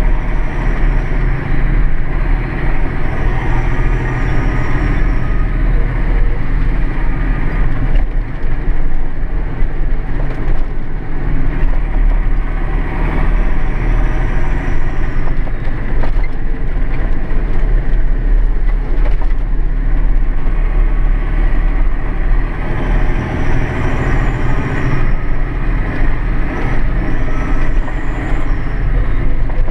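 Massey Ferguson 6499 tractor's six-cylinder diesel engine running steadily, heard from inside the cab as a constant low drone.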